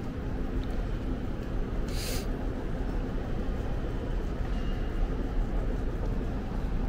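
Steady low rumble of a moving vehicle, with a brief hiss about two seconds in.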